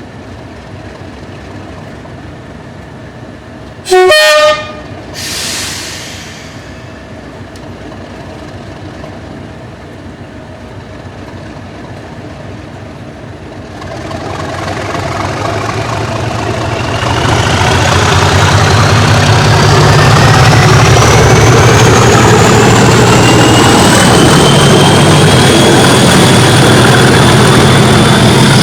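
Two Class 37 diesel locomotives with English Electric V12 engines ticking over, then a short loud horn blast about four seconds in. About ten seconds later the engines are opened up to pull away and the sound builds to full power, with a whistle that rises in pitch: the Class 37 'thrash' and turbocharger whistle.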